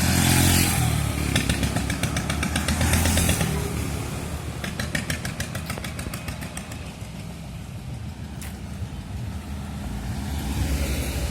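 Diesel engine of a three-wheeled motor vehicle running with a steady pulsing beat. It rises in level near the start and again about three seconds in, eases off through the middle, and grows louder again near the end.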